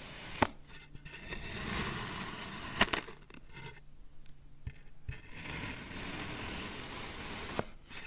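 A knife blade slicing through moulded kinetic sand: a grainy scraping hiss in several strokes with short pauses between them. Sharp clicks come as the blade meets the surface beneath, the loudest about half a second in and near three seconds, with another near the end.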